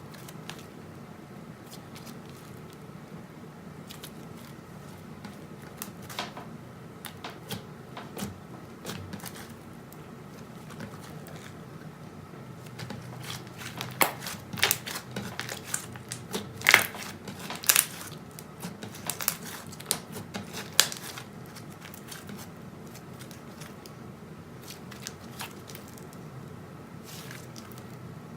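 Slime being squished and poked by hand, giving scattered sticky clicks, pops and crackles that come thicker and louder in the middle stretch.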